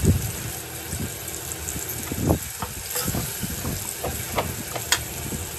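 A perforated metal spatula stirs and scrapes chopped amaranth greens (sirukeerai) in a metal pan, giving irregular scrapes and clinks. Under it runs a steady sizzle from water just poured into the hot, oiled pan.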